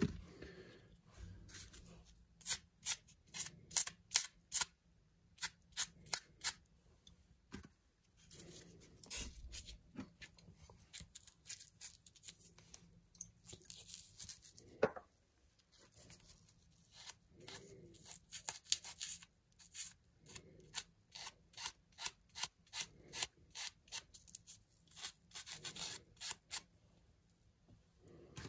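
Irregular runs of short, quiet scratchy rubbing strokes from close hand work on a metal lens mount adapter, including cotton wool being wiped over it.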